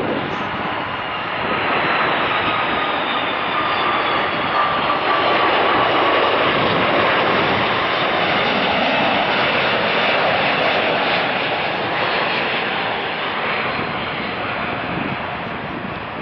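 Airbus A330-300 twin-jet on final approach with gear down, flying past: a steady jet roar with a high engine whine gliding down in pitch over the first few seconds. It is loudest around the middle and fades near the end as the airliner moves away.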